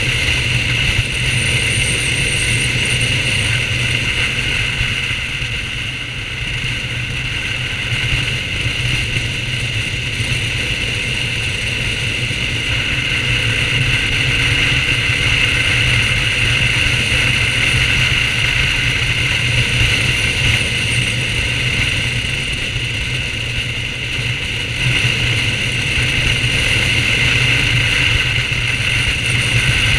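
BMW R1200GS boxer-twin engine running at a steady cruise with road and wind noise from riding. The level eases off briefly twice, about six seconds in and again near twenty-four seconds.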